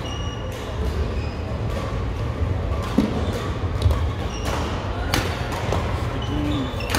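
Badminton doubles rally in a large echoing hall: several sharp racket strikes on the shuttlecock spaced irregularly, with short high shoe squeaks on the court over a steady hum of hall noise.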